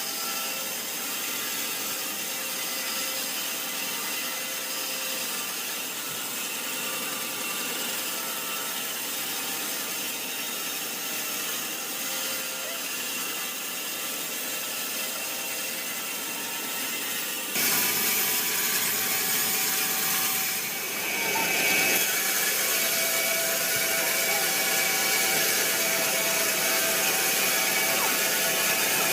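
Sawmill saw running steadily through a large, hard teak log, the machinery keeping up a continuous mechanical noise. About two-thirds of the way in the sound jumps suddenly louder and brighter, then carries on steadily.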